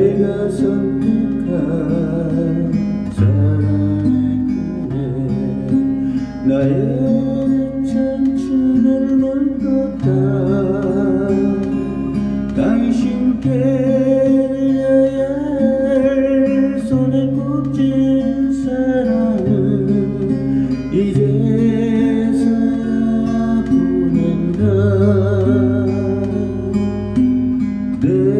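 Acoustic guitar played along with a backing accompaniment of sustained bass notes and a melody line with vibrato: an instrumental passage of a slow Korean ballad, with no singing.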